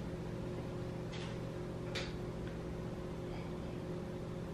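A steady low electrical hum, with two faint clicks about one and two seconds in.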